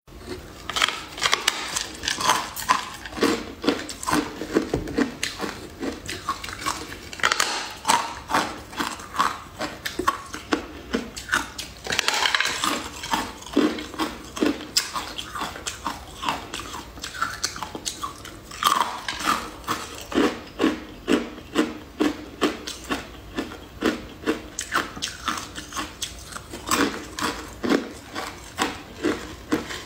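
Eating sounds: biting and chewing pieces of a glittery purple jelly, with many sharp, irregular mouth clicks.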